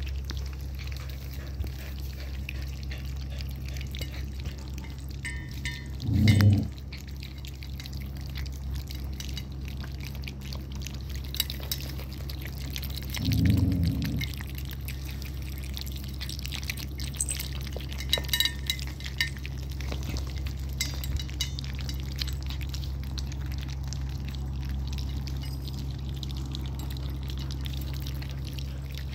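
Puppies eating wet food together from a stainless steel bowl: wet lapping and smacking with small clinks against the bowl, over a steady low hum. Two brief, louder low sounds come about six and thirteen seconds in.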